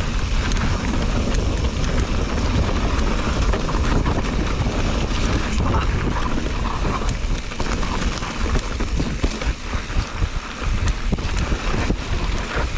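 Mountain bike rolling fast down a dirt trail: steady wind noise on the handlebar-level camera microphone over tyres running on dirt and dry leaves, with many small clicks and rattles from the bike throughout.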